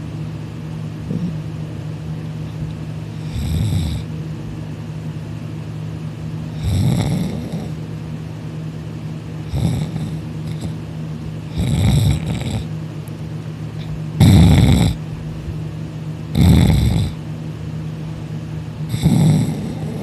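A person snoring loudly in deep sleep, about seven rasping snores roughly every two and a half seconds, over a steady low hum.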